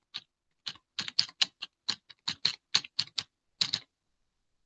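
Typing on a computer keyboard: an uneven run of quick keystroke clicks that stops a little before the end.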